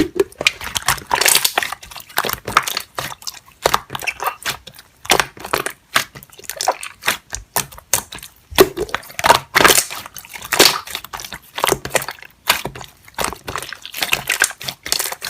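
Slime being squeezed and worked by hand, giving a dense, irregular run of sticky clicks, pops and squelches.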